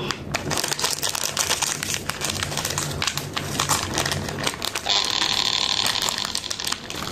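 Many small clicks and rattles as peanuts are dropped by hand onto a stone mortar holding chili sauce and papaya, followed about five seconds in by a steadier rustle lasting under two seconds.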